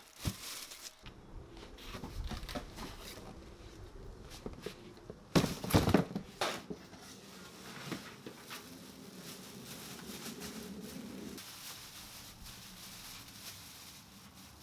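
Cardboard box and packing material being handled and pulled open: rustling, crinkling and tearing, with a few loud knocks about five to six seconds in.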